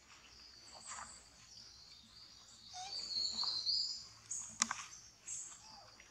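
Birds chirping and calling, faint, with a longer run of high chirps about three seconds in and one sharp click shortly after.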